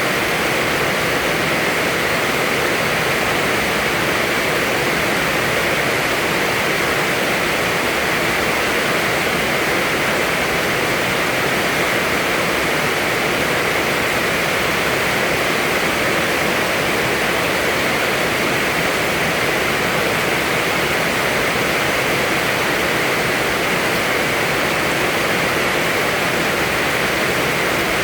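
Heavy rain falling steadily, a dense, even hiss of water that does not change.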